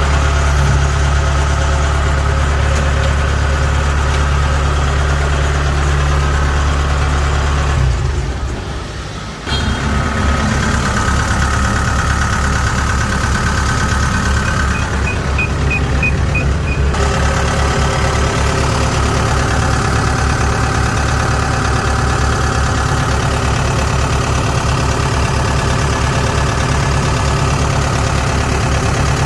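Kubota DC70G combine harvester's diesel engine running steadily. About a third of the way in, the sound briefly drops away and returns with a more pulsing beat. Shortly after, a run of about seven short high beeps sounds.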